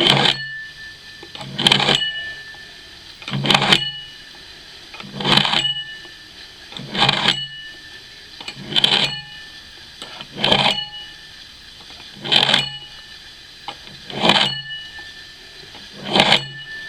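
Old broad axe's steel edge drawn again and again through a Block knife sharpener's pins: ten even scraping strokes, about one every two seconds, each leaving the axe head ringing faintly.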